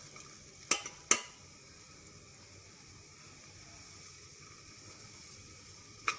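Sliced onion frying in hot oil in a pan, a steady faint sizzle. A stirring utensil knocks twice against the pan about a second in, and once more near the end.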